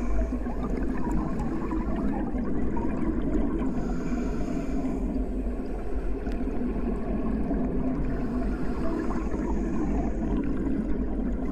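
Underwater sound from a submerged microphone: a steady, muffled wash of water noise with a deep rumble, and a faint higher hiss that comes and goes about every five seconds.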